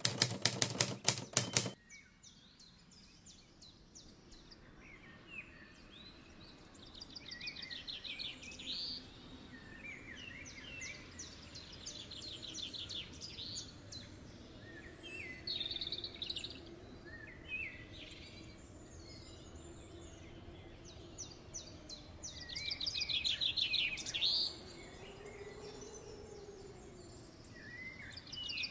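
Small birds chirping and singing short rapid trills again and again, over a faint low hum. A rapid burst of loud clicks fills the first couple of seconds.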